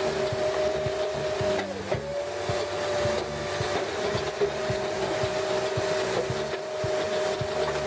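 Engine-driven wood-processing machine running with a steady whine that briefly dips in pitch about two seconds in, over rough scraping and knocking of wood being worked.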